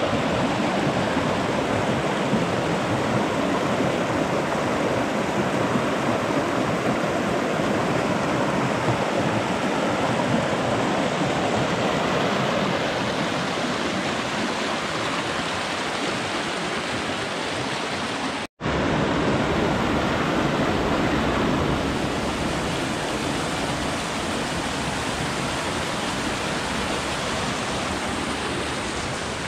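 Steady rushing of flowing water, a stream or waterfall close by. It cuts out for an instant about eighteen seconds in, then carries on a little softer.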